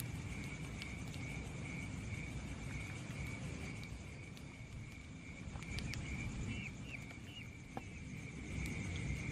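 Night insects, crickets, trilling on one steady high pitch over a low rumble, with a few short chirps about two-thirds of the way through.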